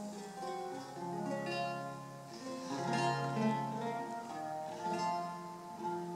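Solo eight-course Renaissance lute played fingerstyle: plucked notes ring over held bass notes in a flowing, many-voiced line of Elizabethan music.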